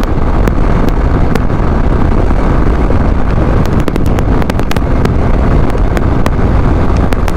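Heavy wind rushing over the microphone on a Honda SP160 motorcycle held at its top speed of about 105 km/h in fifth gear, with the engine and road noise running steadily beneath.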